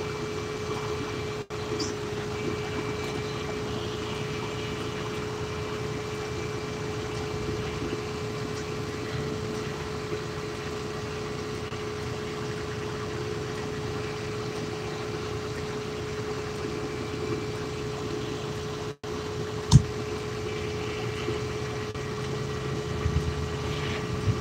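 Flatbed tow truck idling close by: a steady engine hum with a constant whine running through it, one sharp click about twenty seconds in, and a few low knocks near the end.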